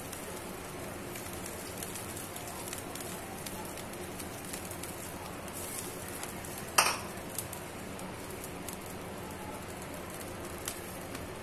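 Broth simmering in a wok, a steady low bubbling hiss, with one sharp clink of kitchenware about seven seconds in.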